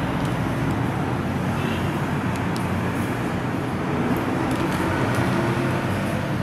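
Steady low background rumble with a hum, like distant traffic or machinery, with a few faint ticks from a plastic syringe packet being handled.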